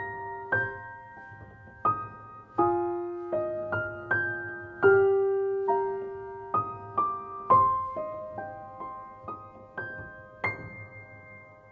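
Background music of slow solo piano: gently struck notes, each left to ring and decay. The last note, near the end, fades away.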